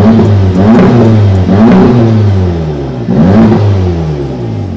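A 2017 Volkswagen Golf R's turbocharged 2.0-litre four-cylinder revved in a few short blips of the throttle, each rise falling back, the last about three seconds in, then dropping toward idle near the end. It sounds healthy, "not bad", after the rear-end rebuild.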